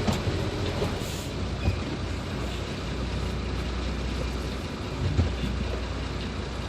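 Hino 500 truck engine running with a steady low drone as the truck drives, with a few knocks and rattles and a brief hiss about a second in.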